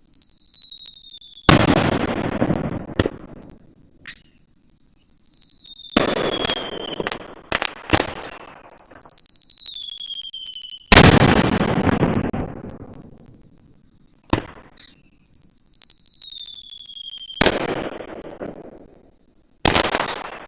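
Aerial firework shells bursting with loud bangs every few seconds, each bang trailing off. Before most bursts a thin whistle falls in pitch.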